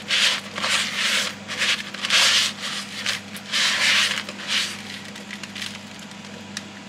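Crushed tortilla-chip crumbs crunching and rustling as a chicken breast is pressed and turned in them by hand in a plastic bowl, in repeated bursts about two a second that die away after about five seconds.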